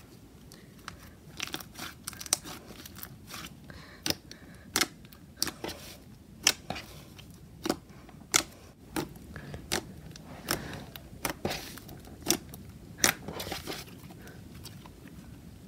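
Fluffy, clicky clay-mixed slime being stretched, folded and pressed by hand, giving off irregular sharp clicks and pops over a soft squishing.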